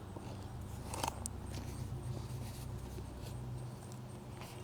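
Faint handling noise of a thick hardback book being opened: light rustling with a couple of small clicks about a second in, over a low steady hum.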